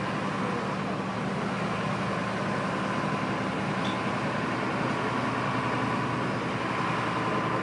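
Fire engine running steadily at the scene, a constant low engine hum with a steady high whine over it.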